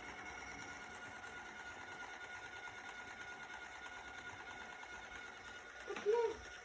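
Xiaomi Mijia 3C robot vacuum running, a steady motor and fan whine with a few level tones. About six seconds in, a brief louder sound with a bending pitch cuts in.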